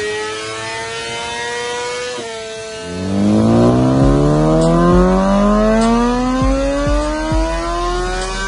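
2020 BMW S1000RR's inline-four engine through a Spark exhaust, revving under load on a dyno. The pitch climbs, drops abruptly about two seconds in, then climbs steadily and louder from about three seconds on.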